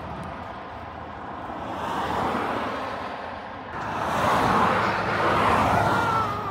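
Cars passing on the road, tyre and engine noise swelling and fading twice, the second pass louder, around four to six seconds in.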